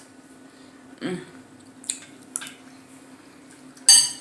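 Spoon or fork clinking against dishes: a couple of light clicks, then one sharp, loud clink near the end that rings briefly.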